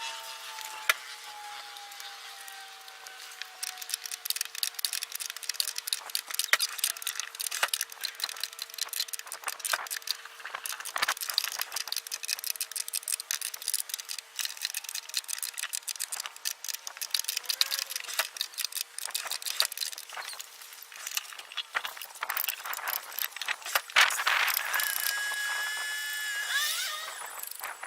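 Metal tools and parts clicking and rattling in quick, irregular succession, with a faint steady hum underneath that stops partway through. Near the end comes a louder hissing, whining stretch of about three seconds.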